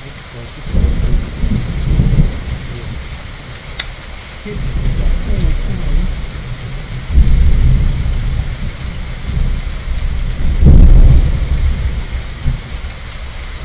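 Thunder rumbling in several rolls over steady rain, the strongest rolls about halfway through and again near the end.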